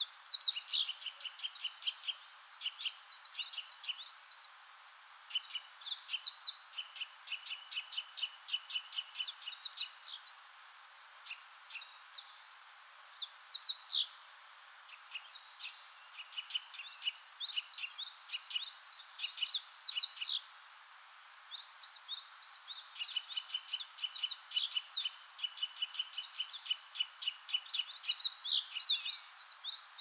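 Wild birds calling: many quick, high chirps and short runs of rapidly repeated notes, overlapping one another, with a couple of brief lulls. A steady faint hiss of background noise runs underneath.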